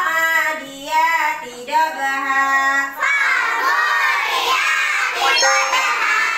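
A class of young children chanting Quran verses together in a sing-song memorisation drill, led by a woman teacher's voice. The chant is broken into short phrases at first, then runs on continuously and fuller from about three seconds in.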